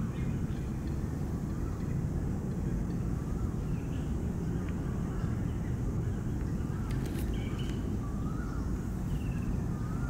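Steady low outdoor rumble with several faint, short bird chirps that rise and fall, every second or two, and a couple of sharp clicks about seven seconds in.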